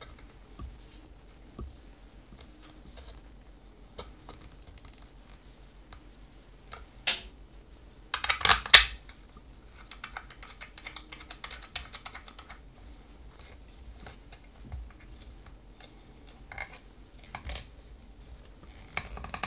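Plastic action-camera mount pieces and a waterproof camera housing being handled and clipped together: scattered light clicks and rattles, a loud clatter about eight seconds in, then a few seconds of scraping.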